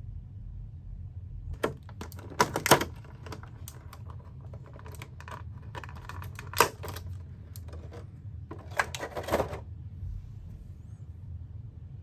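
Clear plastic packaging crinkling and clicking as hands pull the wrapping off a toy shield. It comes in short spells of sharp crackles: a cluster about two seconds in, one loud click midway, and another cluster near the end.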